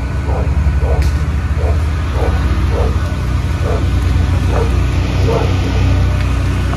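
Hurricane wind and rain outside a screened window: a steady heavy rumble of gusting wind over the hiss of driving rain.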